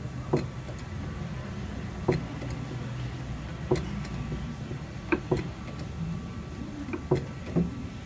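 Sharp metallic clicks, about eight of them spaced a second or two apart, over a steady low hum, as a 4-ton hydraulic ram fitted with the Rail Saver presses against a crushed steel frame rail.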